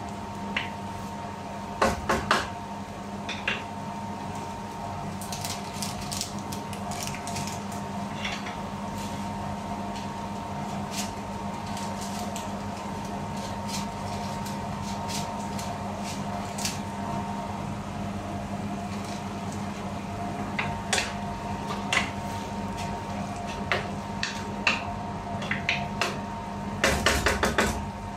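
A wooden spatula stirs and scrapes sponge gourd and mushrooms in a nonstick frying pan, making scattered clicks and scrapes: a cluster about two seconds in, a few scattered ones through the middle, and a busier run near the end. A steady hum runs underneath.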